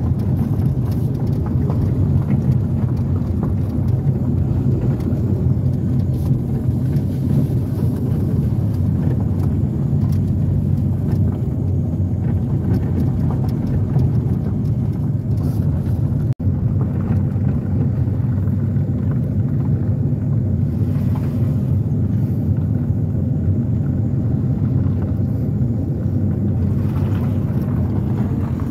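A car driving slowly on a gravel road, heard from inside the cabin: a steady low rumble of engine and tyres. The sound cuts out for an instant about sixteen seconds in.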